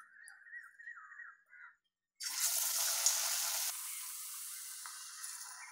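A batter-coated stuffed green chilli (mirchi bajji) deep-frying in hot oil: about two seconds in, a sudden loud sizzling hiss starts, then settles to a steady sizzle. Before it, faint wet sounds of the chilli being turned in the batter.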